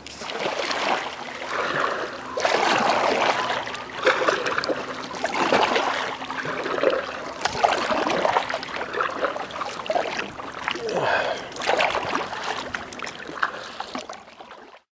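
Kayak paddle strokes splashing and water dripping and trickling, in uneven surges about once a second, cutting off abruptly near the end.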